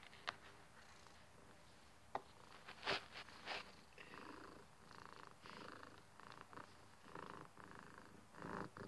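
Domestic cat purring softly while being stroked, the purr coming in repeated pulses. A few faint clicks from hands and fur near the phone come in the first half.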